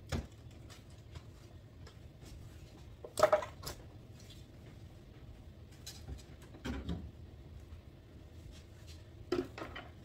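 Refrigerator shelves, trays and containers being moved and set down: scattered knocks and clatter of plastic and glass, the loudest a sharp knock about three seconds in, with more near seven and nine seconds.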